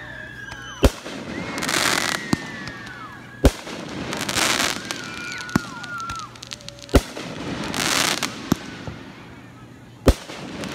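Aerial fireworks going off: four sharp, loud bangs about three seconds apart, the loudest near the end, with smaller pops between them and stretches of rushing, crackling hiss.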